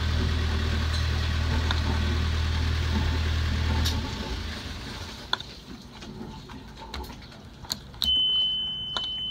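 Yanmar marine diesel engine running smoothly, then shutting down about four seconds in. A few clicks follow, and a steady high beep sounds for about a second and a half near the end.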